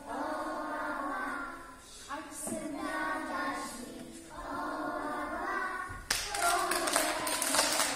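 A group of young children singing a song together in phrases with short breaks. About six seconds in the song ends and applause breaks out, louder than the singing.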